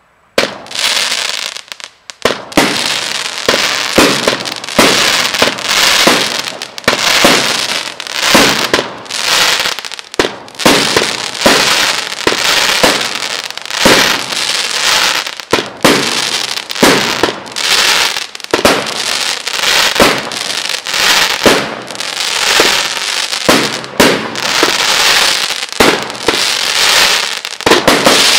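A 25-shot, 32 mm firework cake firing shot after shot in quick succession, the launch reports and mid-air bursts overlapping, with a continuous hiss between them. It starts suddenly less than a second in and runs on without a break.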